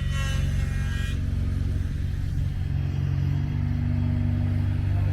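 A vehicle engine running steadily at a low, even note, with a brief high squeal in the first second.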